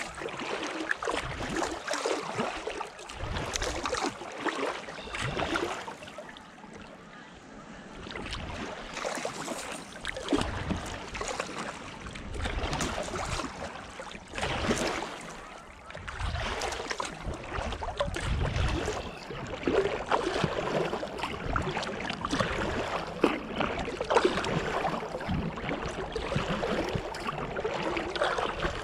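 Kayak paddling on calm water: paddle blades dipping, splashing and dripping in irregular swells, with a lull about six seconds in.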